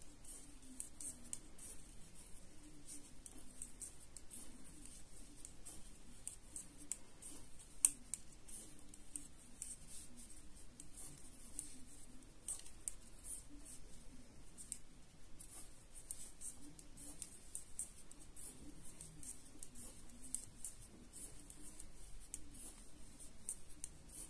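Knitting needles clicking and tapping softly as stitches are worked along a row, with a sharper click about eight seconds in.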